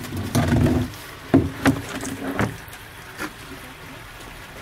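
Water sloshing and splashing in a plastic koi bowl as a large koi moves in it, with a few sharp slaps in the first three seconds, then settling to a low wash.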